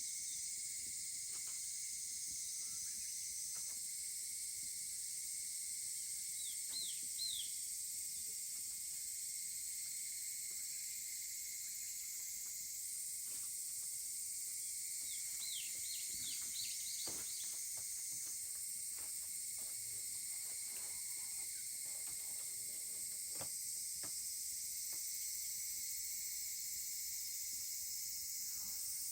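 Rural insect chorus, a steady high-pitched hiss, with two short runs of quick falling chirps about seven and sixteen seconds in, and faint scattered crackles and ticks.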